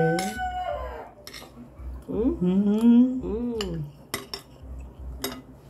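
Metal cutlery scraping and clinking on glass dinner plates during a meal, with several sharp clinks in the second half. A person's drawn-out, wavering vocal sounds, not clear words, come near the start and again in the middle, and are the loudest part.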